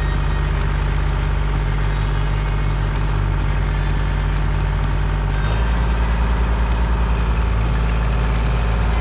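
Kubota L2501 compact tractor's three-cylinder diesel engine running steadily. Its note changes about halfway through.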